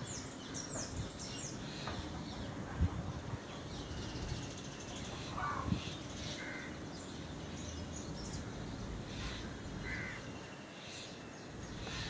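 Several birds calling: scattered short high chirps and a few lower, harsher calls over a steady background hiss. Two dull thumps, about three and six seconds in.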